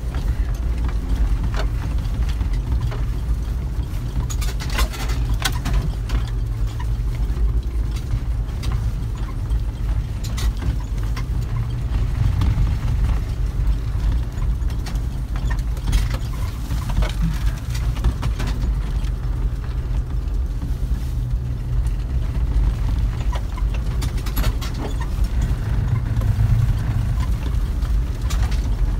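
Vehicle engine running steadily under way, heard from inside the cab as a constant low rumble, with scattered knocks and rattles as it drives over a rutted snow track.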